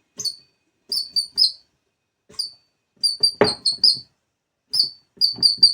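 New gas-oil shock absorber strut squealing in short, high chirps, in quick runs of several at a time, some with a faint knock beneath. The whistle comes from a faulty new strut.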